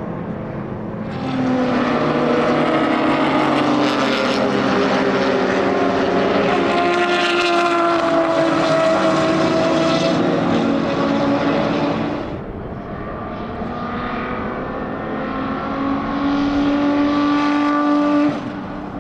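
Racing car engines at high revs going by on a circuit, one shot after another, with the sound changing abruptly at each cut. The engine pitch climbs and eases within each pass.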